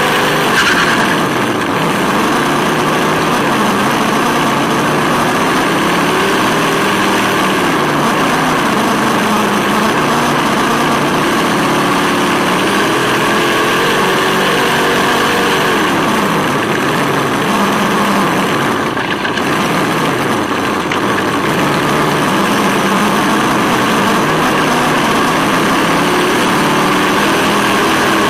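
RC buggy's onboard Sense Hobby ESS-One engine-sound simulator playing a V8 note whose pitch rises and falls several times with the throttle. Under it run a steady whine from the electric drivetrain and tyre noise on asphalt, heard from on board the car.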